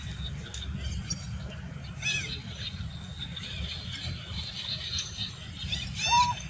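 Young macaques giving short, high, arched calls, one about two seconds in and a louder one near the end, over a steady high hiss.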